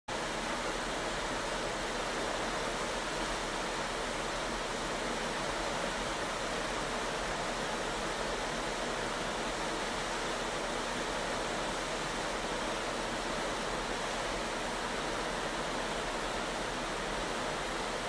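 Ship's wake churning behind the stern: a steady, even rushing noise with a low hum beneath it.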